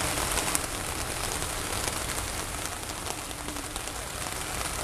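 Heavy downpour falling on a flooded street and nearby surfaces: a steady hiss of rain with scattered sharp drop hits close by, one louder about half a second in.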